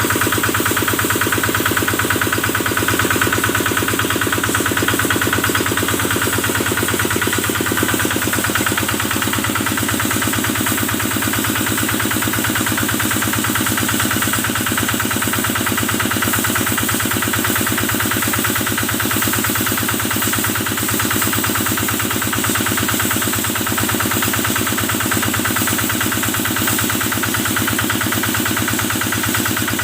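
Kubota stationary single-cylinder diesel engine running steadily, powering the water pump used to wash a cow, with a rapid even firing beat. Its note shifts slightly about eight seconds in.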